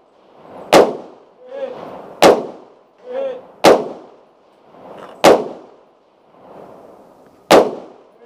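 Five slow, deliberate rifle shots, about a second and a half apart. Each is followed about a second later by the fainter clang of a distant steel target ringing as it is hit.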